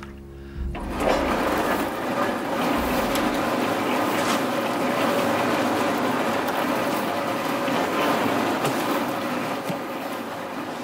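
Cement mixer running, its drum churning wet cement: a steady rattling, sloshing noise that starts about a second in.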